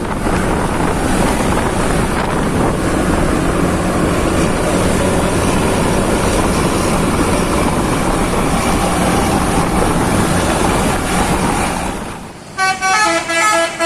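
Loud, steady rushing engine and road noise from a bus going by. About twelve seconds in it dips, and a multi-tone telolet bus horn starts playing a melody of short stepped notes.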